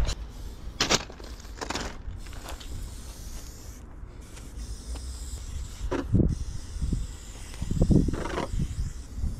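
Aerosol spray-paint can spraying in short hissing bursts, three close together in the first few seconds and two more later, over a low steady rumble.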